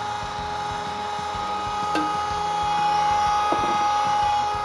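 Cabela's electric meat grinder running steadily with a high motor whine as pork and beef go through the fine 3/16-inch plate on the second grind. It gets a little louder about two seconds in.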